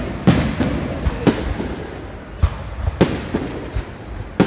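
Fireworks salute shells bursting overhead: a run of sharp bangs, roughly one every second or so, each trailing off in an echoing rumble.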